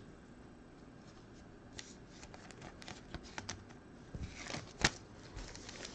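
Panini Prizm football trading cards being handled and laid down on a table mat: a run of light taps and rustles, the sharpest one near the end.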